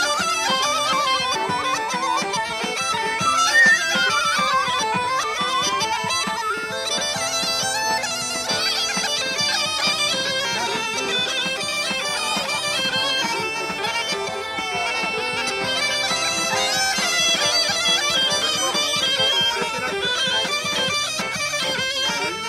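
Bulgarian gaida, a goat-skin bagpipe, playing a fast, ornamented folk tune over its steady drone, with an accordion playing along.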